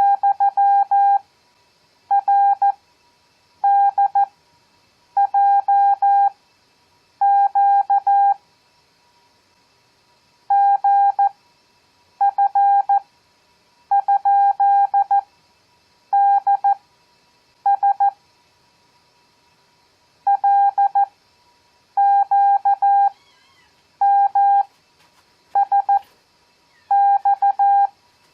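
Morse code (CW) practice tone, a single steady beep keyed in dots and dashes. Random five-character groups of letters, numbers and punctuation are sent at 14 words per minute with Farnsworth spacing at 7 words per minute: each character comes quickly, with long pauses between characters and a still longer pause after every fifth one.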